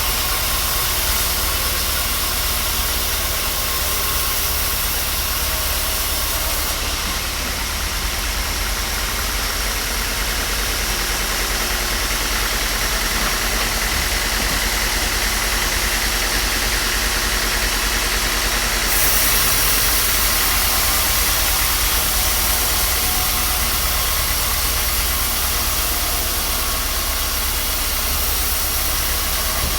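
A machine motor running steadily with a low drone and hiss, with no clear cutting or impacts.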